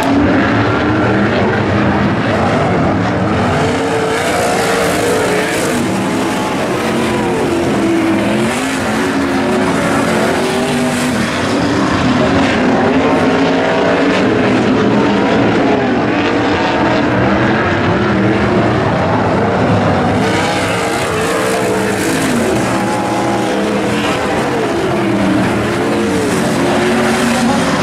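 Several non-wing sprint cars racing on a dirt oval. Their loud engines rise and fall in pitch, overlapping, as the pack circles the track.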